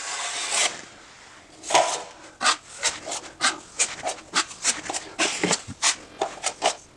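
Drywall taping knife scraping a thin skim coat of thinned joint compound across the wall in one long stroke, then, after a short pause, a run of quick short scrapes as the knife is worked against the edge of a metal mud pan.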